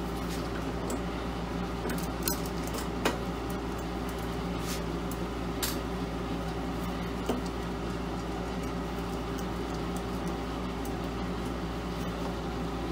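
Screwdriver turning screws out of a sheet-metal cover, with scattered small metallic clicks and ticks, the sharpest about three seconds in, over a steady background hum.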